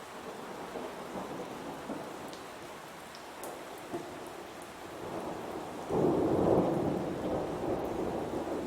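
Heavy rain falling steadily, with a roll of thunder that builds about five seconds in, breaks loudly about a second later and slowly dies away.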